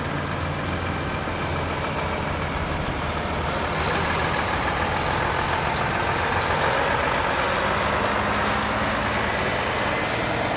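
Diesel engine of a Mack tanker fire truck running as the truck drives slowly past, getting louder about four seconds in as it comes close. A thin high whine slowly rises in pitch over the second half.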